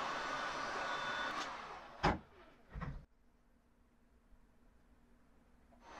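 Heat gun blowing hot air onto a black plastic hose cuff to soften it, switched off about a second and a half in. A sharp knock follows at about two seconds and a duller thud under a second later, then quiet room tone. The heat gun's blowing starts again just before the end.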